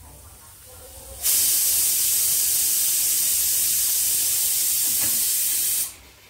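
A loud, steady hiss, like steam or air escaping, that starts suddenly about a second in and cuts off suddenly near the end.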